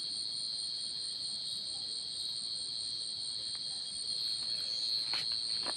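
A cricket calling from its burrow in the soil: a steady, unbroken high-pitched trill. A few faint clicks come near the end.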